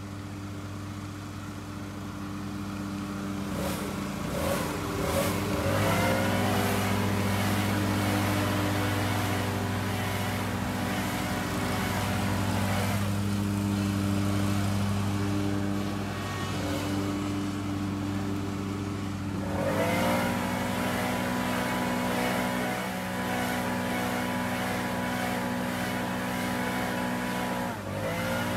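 Stand-on zero-turn mower's engine running steadily while mowing grass. Its note rises about five seconds in and again about twenty seconds in, and briefly dips and picks up again near the end.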